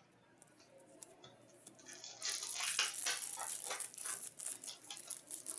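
Shiny hockey card pack wrapper being torn open and crinkled by hand. After a few faint clicks, a dense crackling starts about two seconds in and runs on until near the end.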